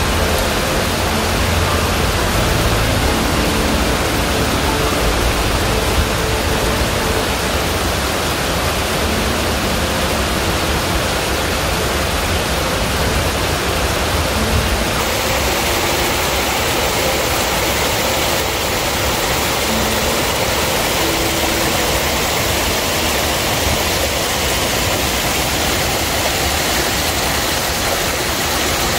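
Small waterfalls and a cascading mountain stream rushing steadily over mossy rocks. About halfway through the sound shifts, with less deep rumble.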